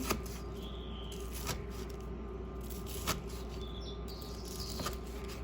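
Kitchen knife slicing through a breaded, fried chicken katsu cutlet onto a cutting board: four sharp knocks about a second and a half apart, over a steady low hum.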